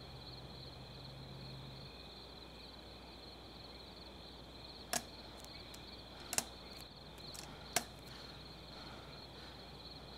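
Faint steady chirring of night crickets. About halfway through come a few sharp taps, two close together, consistent with metal forearm crutches striking the floor as someone moves on them.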